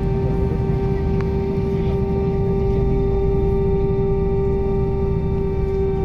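Airbus A320 jet engines at low thrust, heard from inside the cabin as the airliner taxis: a steady hum with one constant mid-pitched tone and fainter higher tones over a low rumble.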